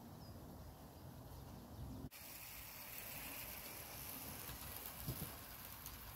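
Faint outdoor ambience, a low even hiss. About two seconds in it changes suddenly to a brighter, hissier background.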